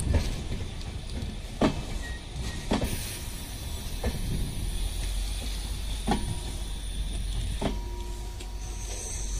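LHB high-capacity parcel vans rolling past on the track with a steady rumble and hiss. Their wheels click sharply over the rail joints six times, at uneven gaps of one to two seconds.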